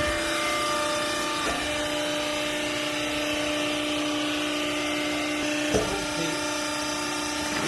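Hydraulic baler's motor-driven pump running with a steady pitched hum, with a short knock about a second and a half in and another near six seconds.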